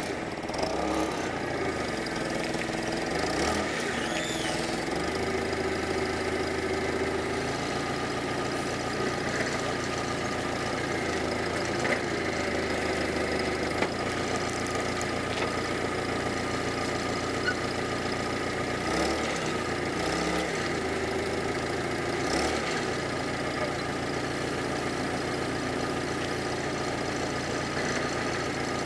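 Propane-fuelled forklift engine running at a steady idle, with a few brief changes in engine speed.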